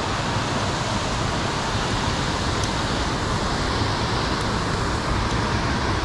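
Steady rush of water pouring over a low concrete weir (low-head dam) on a creek, loud enough that it needs talking over.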